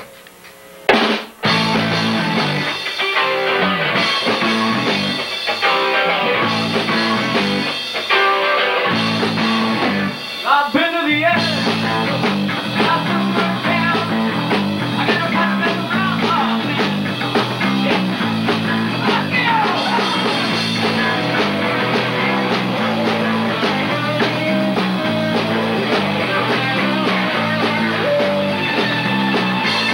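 Rock band playing live on electric guitar, bass guitar and drum kit. After a short break about a second in, the full band crashes back in and drives on over a steady, pulsing bass line.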